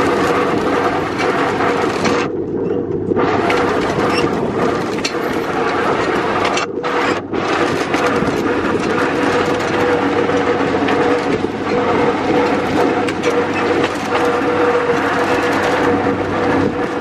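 Toonerville Trolley narrow-gauge train running along the track: a steady clattering and rattling of the car with a steady drone underneath.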